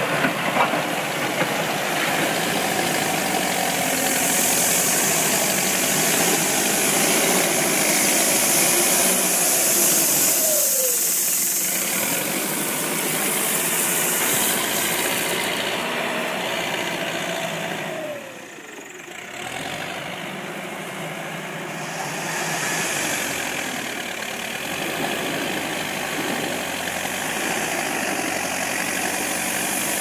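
ABEL backhoe loader's diesel engine running steadily while the loader bucket works a pile of earth. The pitch falls briefly twice, and the sound drops for a moment once.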